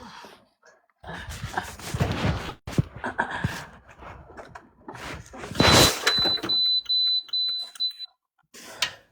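Muffled shuffling noise, then a loud burst followed by a run of about six quick, high-pitched electronic beeps, roughly three a second, that stop near the end.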